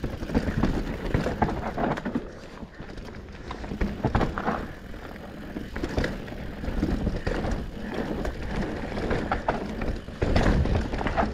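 Mountain bike rolling fast down a dirt trail: tyre noise over dirt and rock, with frequent knocks and rattles from the chain and frame, louder over a rough patch near the end.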